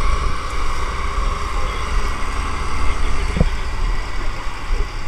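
Motorboat engine running steadily under way, with a heavy low rumble of wind on the microphone and a brief knock about three and a half seconds in.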